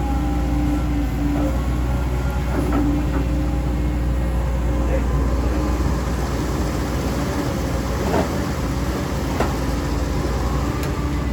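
CAT 320D2 GC excavator working: diesel engine running steadily with the whine of its hydraulics, and a few short knocks about 3, 8 and 9 seconds in.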